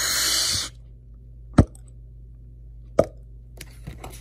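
A loud rasping hiss for the vacuum bag's 'RRRRRIP!' tearing, cut off abruptly under a second in. Two sharp taps follow about a second and a half apart, then a few faint ticks.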